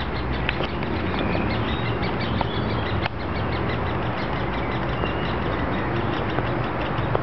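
Woodpecker nestlings begging from the nest: a fast, continuous chatter of short, high calls, over a steady low background rumble.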